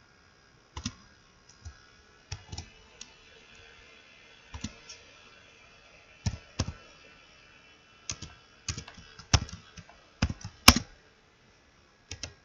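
Computer keyboard keys pressed one at a time, slow and uneven keystrokes with pauses between them, as code is typed.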